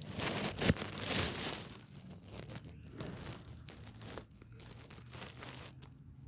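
Crackling, rustling handling noise from a phone being moved and rubbed against its microphone, irregular and loudest in the first second and a half before dying down.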